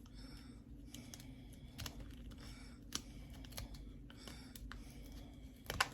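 Small scissors trimming a strip of velcro: a handful of faint, short snips at irregular intervals.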